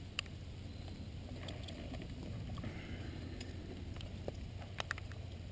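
Steady low rumble with a few light, sharp clicks of climbing gear, most of them near the end, as a climber moves on rock.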